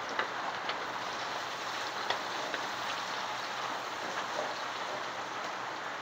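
Ginger, lemongrass, garlic and shallots frying in hot oil in a wok: a steady sizzling hiss with scattered small pops and crackles. The aromatics are being fried until golden.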